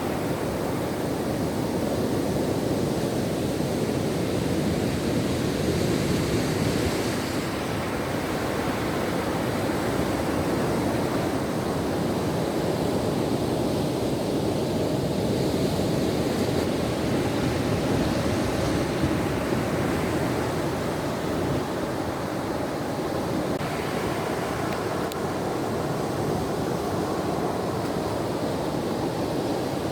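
Ocean surf washing onto a shore: a steady rushing noise that swells gently every several seconds as waves break.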